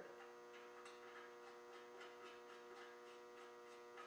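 Near silence: a steady electrical mains hum, with faint light ticks at a fairly even pace.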